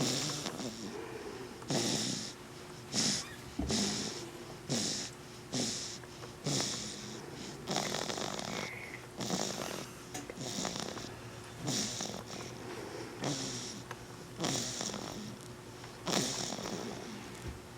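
Short, snuffly snores from a sleeping one-month-old, repeating steadily a little under once a second.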